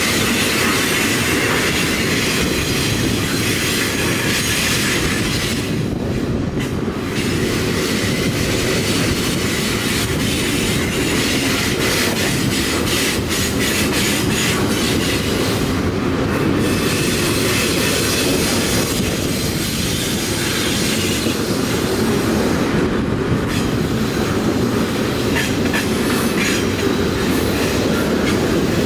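Freight train rolling past steadily: double-stack container well cars and then boxcars. A continuous rumble of wheels on rail carries a rapid run of clicks as the wheels pass over rail joints.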